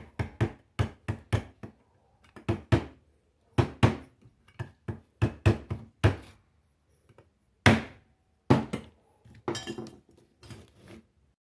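Screwdriver tapping a fan motor's small bushing retaining clip to drive it into place over the bushing. About two dozen sharp taps come in uneven groups, with short pauses a couple of seconds in and again past the middle.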